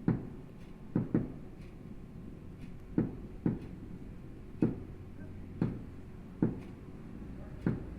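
Scattered firework bangs, about nine sharp pops at irregular intervals, a couple of them in quick pairs.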